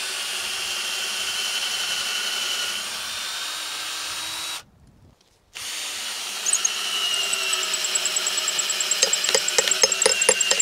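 Cordless drill running into a hard wooden gate post, its motor whining steadily under load. It stops about halfway through, starts again a second later, and near the end gives a quick run of sharp clicks, about six a second.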